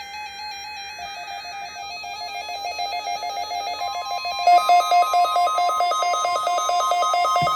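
A short buzzy burst of SAME digital header tones ends about two seconds in. Near the middle a steady NOAA Weather Radio 1050 Hz warning alarm tone begins and holds, under a repeating electronic melody that grows louder.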